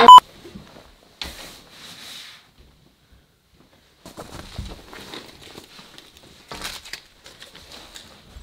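A short, loud electronic beep right at the start, then quiet. From about four seconds in there is faint, irregular clothing rustling, light footsteps and small handling clicks as a person moves about a room.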